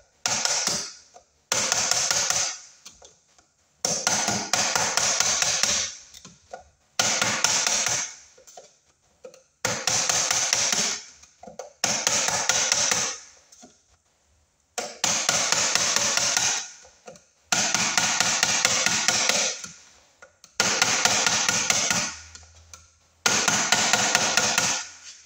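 A screwdriver tightening a wire connection in a metal breaker panel: about ten bursts of rapid clicking, each starting sharply and fading over a second or two.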